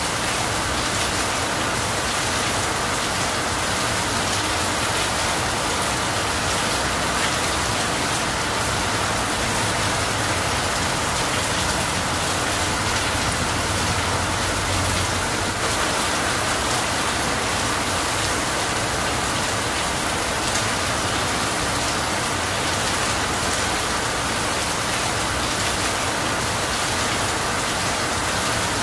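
Steady rain falling on a leafy tree and running off a roof edge: an even, unbroken hiss with no lulls or thunder.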